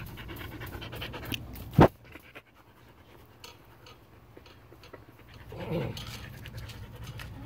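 A dog panting, with one sharp, loud knock about two seconds in and a short pitched sound near six seconds.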